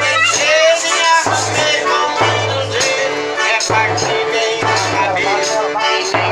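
Music with a repeating low bass note, a gliding melody and shaken percussion such as maracas or a tambourine.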